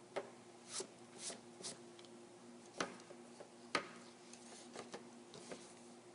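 Metal spudger scraping old adhesive off a plastic phone frame: a few short scratchy strokes, then two sharp clicks and some fainter ticks. A steady low hum runs underneath.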